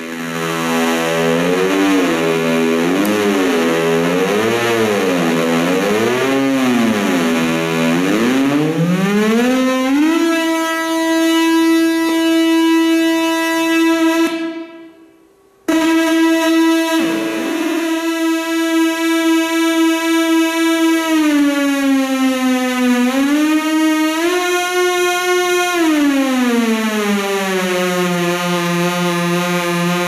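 Moog Mother-32 analog synthesizer playing a single buzzy tone with its knobs being turned live. For the first few seconds the pitch wobbles slowly up and down, then it glides up to a steady held note that cuts out briefly about halfway through and returns. It then dips, rises again and glides down to a lower held note near the end.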